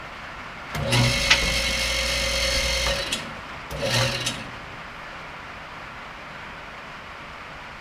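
Electric motor of a powered lift's hydraulic pump running in a steady hum for about two seconds, then again in a short burst a moment later, raising the load that will not yet go high enough for the cradle mount.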